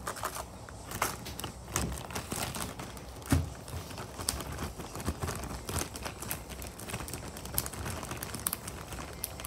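Clear zip-top plastic bag crinkling and rustling as it is handled, with sharp clicks and knocks from plastic slime containers inside it. A louder knock comes about three seconds in.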